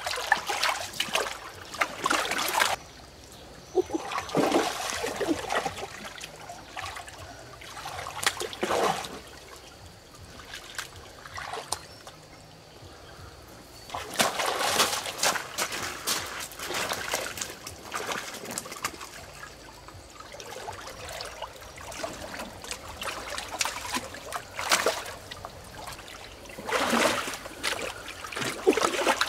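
Water splashing in irregular bursts a few seconds apart, with a quieter steady trickle of running water between them.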